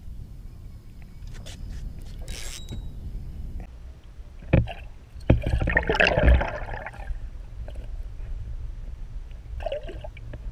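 Muffled water noise and gurgling around an action camera dipped under the lake surface, with a low steady rumble. A few sharp knocks come about four and a half seconds in, followed by a louder burst of splashing.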